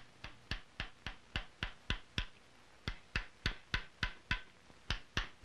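Mallet striking a round gouge as it roughs out a rifle's barrel channel in a curly maple stock: sharp, even knocks about three a second, with a brief pause near the middle.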